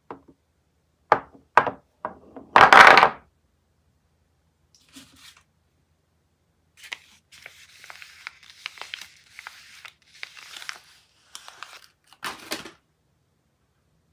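Soap wrapping being torn open and crinkled by hand: a few sharp rips in the first seconds, the loudest about three seconds in, then soft crinkling rustle and one more rip near the end.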